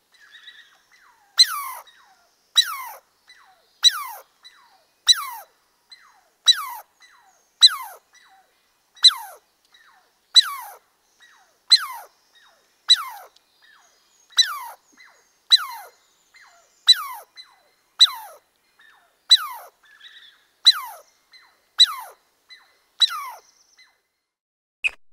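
Squirrel alarm calls: a short, sharp high call sliding quickly down in pitch, repeated evenly about every second and a quarter, stopping near the end.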